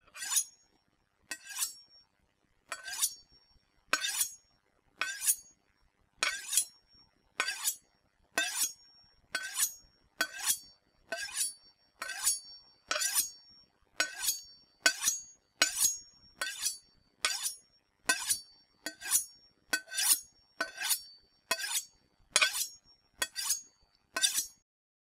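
Knife blade being sharpened in a long run of quick scraping strokes, roughly one a second, each with a brief metallic ring. The strokes stop shortly before the end.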